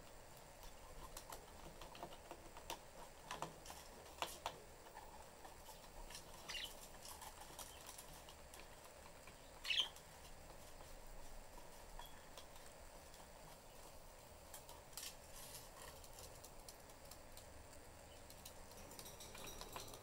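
Pet budgerigars in a cage: faint scattered clicks and taps from the birds moving and picking at perches and seed, with two short chirps, the louder one about ten seconds in.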